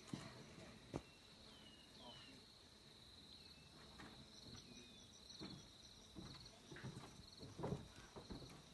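Faint outdoor ambience: a steady high insect trill with a few short descending bird whistles over it, and footsteps on a dirt path that grow louder near the end.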